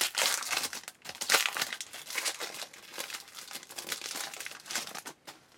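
Plastic wrapper of a trading-card pack crinkling and tearing as it is ripped open and handled, loudest in the first second and a half, then lighter crackles that die away near the end.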